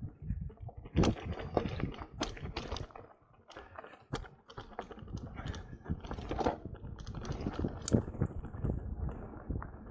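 Mountain bike rattling down a rough dirt trail: a dense, irregular clatter of clicks and knocks as it rides over stones and bumps, with the loudest knocks about a second in and about two seconds before the end.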